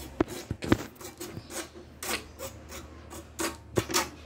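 Handling noise on a phone microphone: irregular rubbing and scraping with scattered light knocks.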